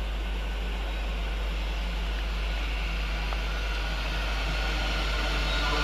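Thameslink Class 700 electric multiple unit approaching at low speed, a steady rumble of running gear with a faint motor whine that grows slightly louder near the end.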